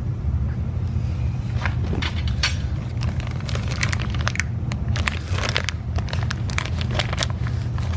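Plastic being handled, crinkling and crackling in a quick, irregular run of sharp crackles that starts about a second and a half in, over a steady low hum.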